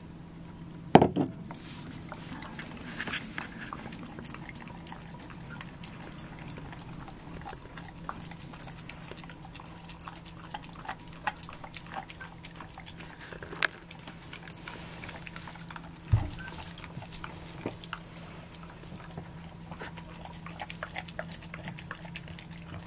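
A giant schnoodle eating soaked raw food from a glass bowl: many small wet clicks and smacks of mouth on food and bowl. A glass bowl knocks down on the floor about a second in, and there is another dull thump about two-thirds of the way through.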